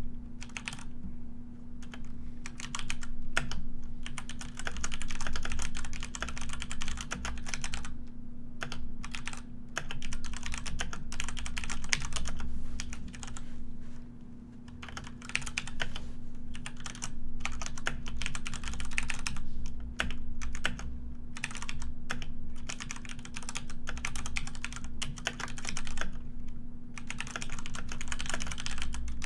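Typing on a computer keyboard: irregular runs of quick keystroke clicks broken by brief pauses, over a faint steady hum.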